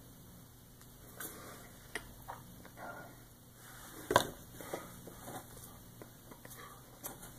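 Faint mouth noises and small clicks from a person moving and gesturing close to the microphone, with one sharper click about four seconds in, over a low steady electrical hum.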